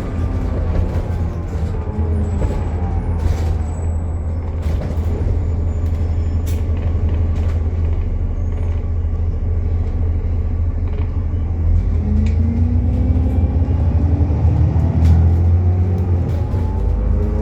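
Alexander Dennis Enviro400 MMC double-decker bus running with a really loud axle noise: a deep rumble under a whine that falls in pitch early on and rises again from about twelve seconds in, following the road speed.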